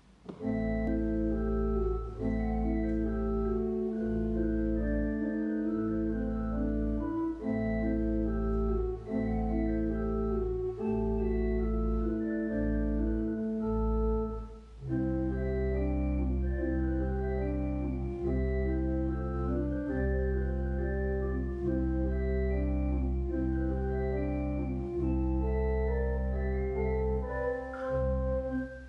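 Church organ playing: long held bass notes under moving chords. Halfway through there is a brief break, then a fuller, deeper sound with lower bass notes.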